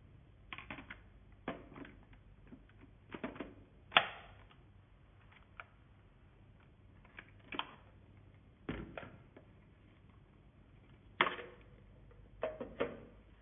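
Hard plastic parts of a handheld vacuum cleaner clicking and knocking as the clear dust cup and mesh filter are fitted onto the motor body and pulled off again. The clicks are scattered and irregular; the loudest come about four seconds in and about eleven seconds in.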